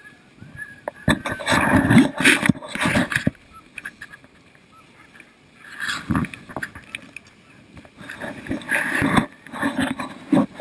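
Dog sled runners scraping and hissing over snow in several uneven rushing bursts as the sled is pulled by the husky team, with quieter stretches between.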